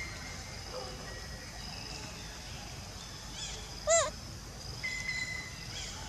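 A macaque gives a short squeaky call that rises and falls in pitch about four seconds in, with a fainter one just before it. Behind it is a faint, steady high-pitched forest background.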